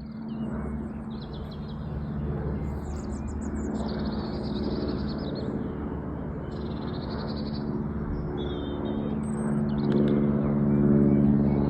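Vintage piston aircraft engine running, a steady low drone that grows louder about ten seconds in, with birds chirping over it.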